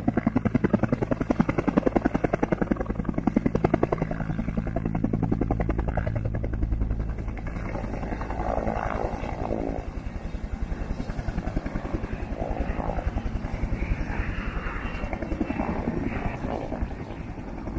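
Bell UH-1N Huey helicopter lifting into a low hover, its two-blade main rotor beating in a rapid, even pulse over the steady hum of its twin turboshaft engines. It grows a little fainter after the first few seconds.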